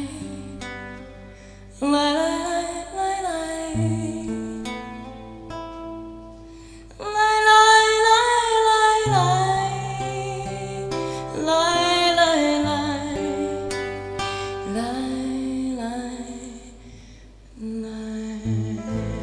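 A woman singing live to her own nylon-string classical guitar, in phrases of held, gliding notes over plucked accompaniment.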